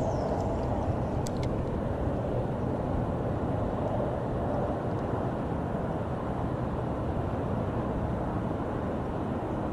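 Steady, even rumble of distant interstate highway traffic.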